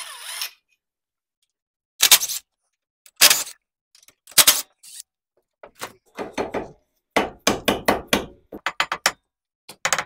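A mallet knocking on a small engine's valve cover to free it: a few single blows about a second apart, then a quick run of about a dozen faster blows, and one more near the end.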